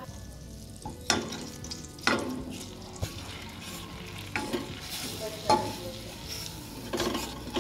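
Wooden spatula stirring flour into hot melted butter in a metal saucepan, making the roux for a béchamel sauce: a scraping stroke every second or so, with the butter sizzling underneath.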